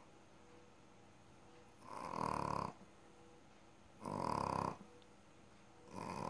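A sleeping rescue animal snoring loudly: three snores about two seconds apart, each under a second long, with quiet between them.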